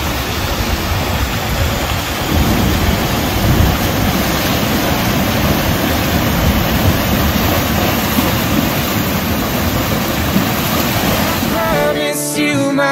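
Steady rush of creek water as a horse wades through it, with wind noise on the microphone.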